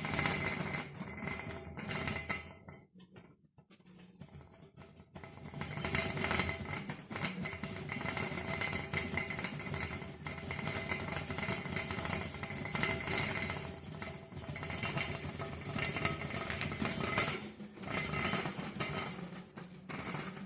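Tatung electric rice cooker rattling and buzzing continuously as it cooks, with a steady hum under a dense clatter; it quietens briefly about three seconds in, then picks up again.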